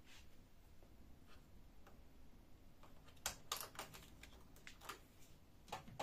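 Quiet, scattered small plastic clicks, bunched together about three seconds in and again near the end, as a wiring harness is pulled free of its plastic cable clips inside a Canon iR2018 copier's side frame.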